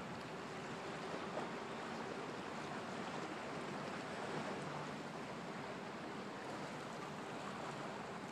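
Faint, steady wash of moving water.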